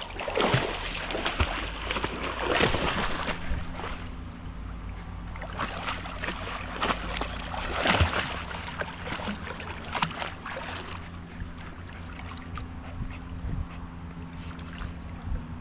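A dog lunging and splashing through shallow creek water after a hooked fish, with bursts of heavy splashing in the first few seconds and again from about five to eleven seconds in, then quieter wading.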